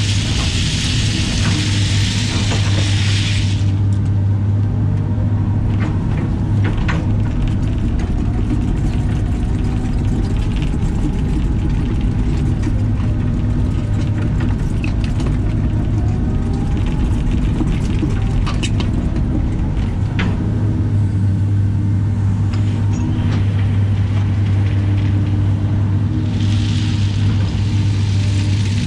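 Caterpillar excavator's diesel engine running steadily with a deep hum, heard from inside the cab, with faint whines from the hydraulics as the boom and bucket move. At the start and again near the end, gravel pours out of the bucket with a loud rushing hiss.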